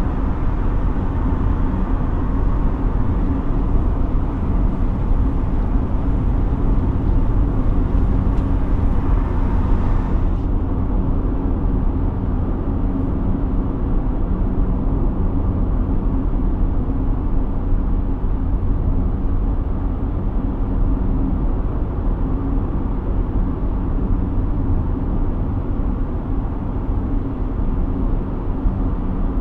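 Steady road noise of a car driving in traffic: a low engine and tyre rumble, with a higher hiss that cuts off suddenly about ten seconds in.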